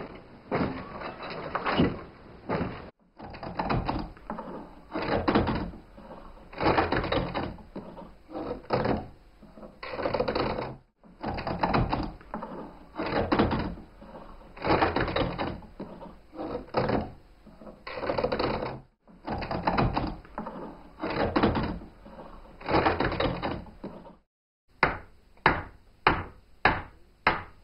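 Historic sawmill's vertical frame saw cutting a log, its blade working in regular strokes about once a second, with a few short breaks. Near the end come a quicker run of sharper knocks.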